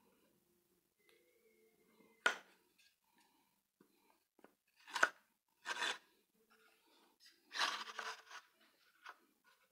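Wooden rod and handmade wooden rounding jig being handled, with the rod sliding in the jig's hole: a sharp knock about two seconds in, a few short knocks and scrapes, and a longer scrape near the end.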